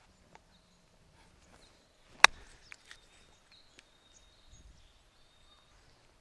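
A golf club striking a ball in a short pitch or chip, one sharp click about two seconds in, with a few fainter clicks around it. Faint high bird calls sound in the background.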